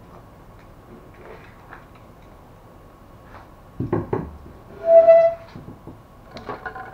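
HP LaserJet fuser assembly being handled and lifted: light clicks, then a knock and rattle of metal and plastic parts about four seconds in. About a second later comes a brief high pitched squeal, the loudest sound, followed by more small clicks near the end.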